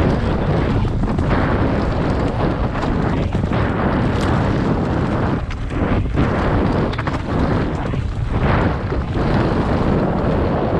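Loud rumbling wind buffeting on the microphone, mixed with the clatter of a mountain bike riding over rough trail, with a few sharp knocks.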